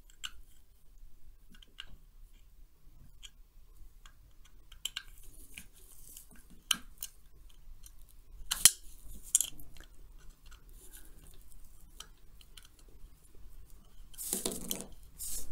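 A very small screwdriver working a tiny set screw out of the sewing machine's metal light fixture: scattered small metal clicks and scrapes, with one sharper click a little past halfway and a brief louder rustle near the end.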